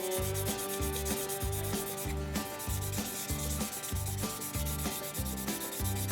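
Hand wet-sanding with a 3200-grit micro finishing cloth pad on a painted plastic model car hood: steady back-and-forth rubbing strokes, about two a second, over background music.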